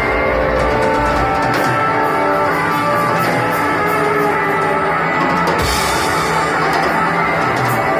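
A rock band playing live: electric guitars with drum kit, a cymbal crash a little past halfway.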